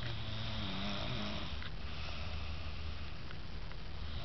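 A woman snoring heavily in a deep, passed-out sleep after drinking: two long snores, quite loud, like a bulldozer.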